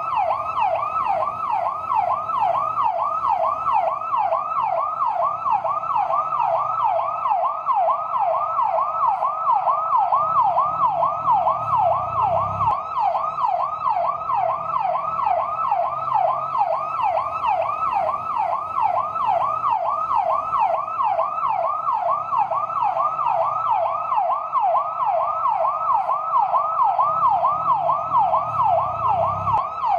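Fire truck siren in yelp mode: a fast wail sweeping up and down in pitch about three times a second, steady and unbroken.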